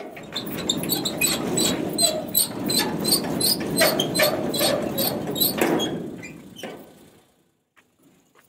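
Metal gate being unbolted and pushed open: a quick run of metal clicks and rattles with a few short squeaks over a rustling noise, dying away about seven seconds in.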